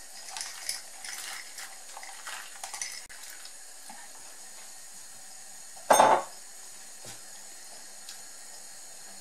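Wet, washed peas poured into a pot of hot water, then a silicone spatula stirring in the pot, with small splashes and clinks. One loud knock against the pot about six seconds in.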